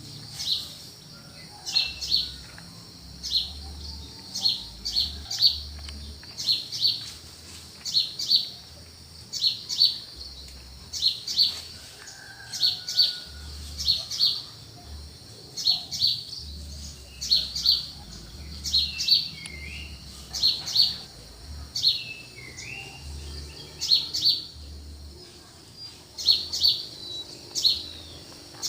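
Small songbirds chirping: short high notes in quick pairs and triplets, repeating about once a second, with a few lower downward-sliding calls.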